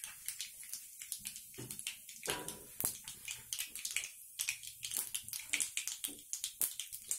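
Mustard seeds and cumin spluttering in hot oil in a steel kadhai: irregular small pops and crackles. This is the tadka stage, where the seeds pop once the oil is hot enough.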